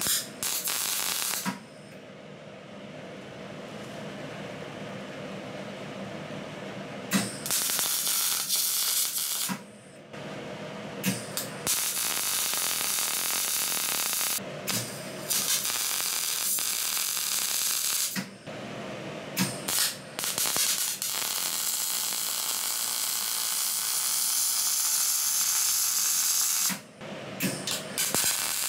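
MIG welding arc crackling and hissing in runs of a few seconds, tacking and seam-welding a straight steel pipe into a car exhaust in place of the catalytic converter. A short run at the start, a pause of a few seconds, then repeated runs with brief stops, the longest lasting about six seconds in the second half.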